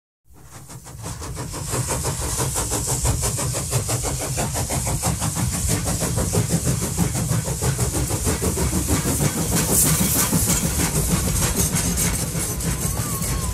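NSW 59 class steam locomotive 5917 working a train away over pointwork: fast, even exhaust beats over a hiss of steam, fading in at the start.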